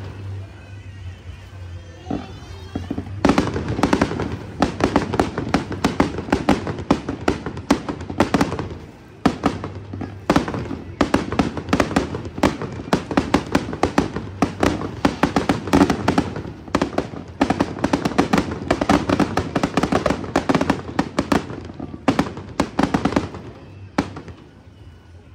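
Fireworks going off: a rapid, dense string of launch thumps and bursting bangs that starts about three seconds in. It eases briefly near nine seconds and stops shortly before the end.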